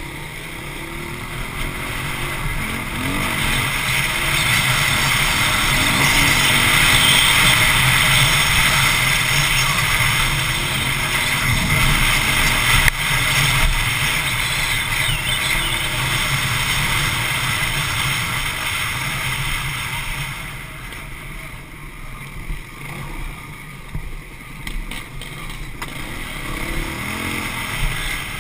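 Honda CRF450X dirt bike's single-cylinder four-stroke engine running hard on throttle along a dirt trail, loudest through the middle, then easing off and coming on and off in short bursts near the end. A single sharp knock about halfway through.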